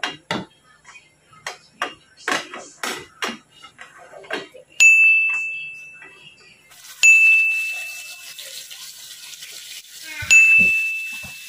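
Irregular clicks and knocks in the first few seconds, then three loud bell-like dings, about two and three seconds apart. Each ding is a single bright tone that rings out and fades over a second or so.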